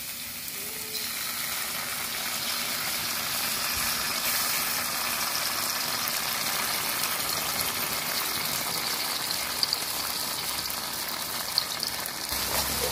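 Blended garlic frying in oil in a wok, a steady sizzle that grows a little louder about a second in as red sauce is poured onto it from a bottle, with a few small pops near the end.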